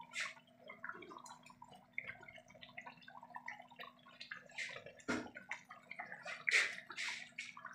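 Thick chicken curry gravy simmering on low heat in a steel pan, its bubbles popping and plopping irregularly, with a few louder pops, over a faint steady hum.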